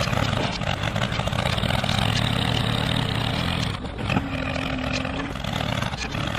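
Tractor engine running steadily as the miniature tractor pushes gravel with its front blade. About four seconds in the sound dips briefly with a click, followed by a short steady hum.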